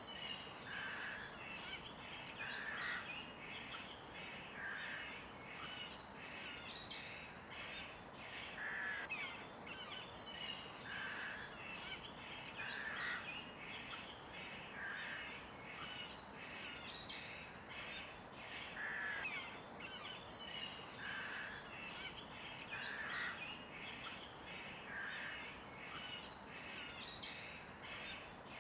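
A chorus of songbirds chirping and calling without a break, many quick high chirps overlapping, with one lower call repeating about every two seconds.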